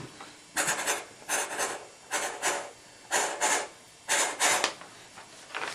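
A child making a steam-train chugging noise with the mouth: hissing "chh-chh" bursts, mostly in pairs, about one pair a second.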